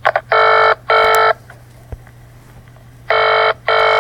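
Telephone ringing in the British double-ring pattern: two short buzzy rings, a pause of nearly two seconds, then two more rings.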